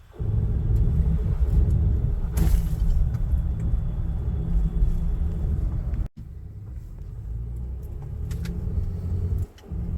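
A 2019 Honda Ridgeline running, a steady low rumble. It breaks off abruptly about six seconds in and resumes quieter.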